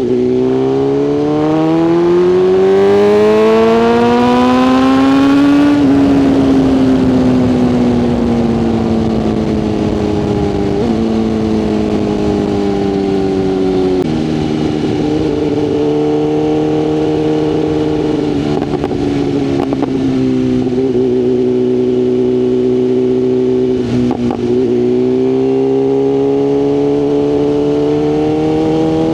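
BMW S1000RR inline-four engine under way. It climbs in pitch as the bike accelerates for about six seconds, then falls slowly off throttle with a couple of stepped gear changes. It runs fairly steady for a stretch, dips briefly near the end, and then rises again on the throttle.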